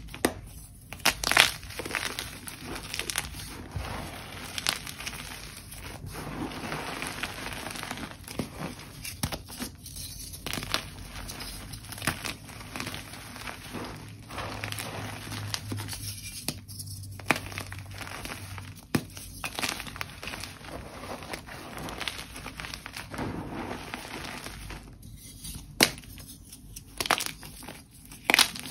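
Blocks of dyed gym chalk crushed and crumbled by hand: continuous crunching and crumbling with several sharp snaps as pieces break off. The loudest snaps come about a second in and again near the end.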